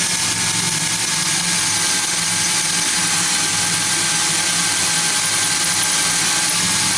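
Electric drill running steadily under load with an extra-long 1/4-inch bit, boring the converter fill hole down through a Powerglide transmission pump's stator support. It cuts off abruptly right at the end.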